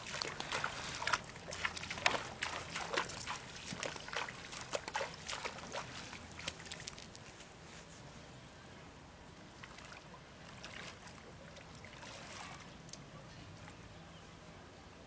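Water splashing and sloshing in quick, irregular bursts that die away after about seven seconds, leaving a faint background.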